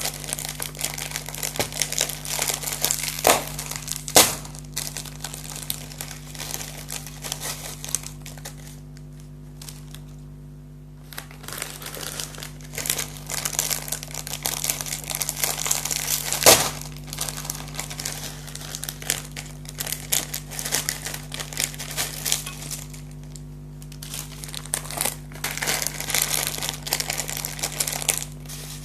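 Foil crisp packets (Lay's) crinkling as they are handled and opened, with a few sharp louder snaps and a brief lull about a third of the way in. A steady low hum sits underneath.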